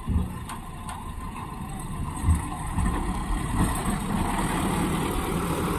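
Mahindra Bolero pickup's diesel engine pulling a heavy load off a ferry ramp and up a bank, growing louder as it approaches. A single thump a little over two seconds in.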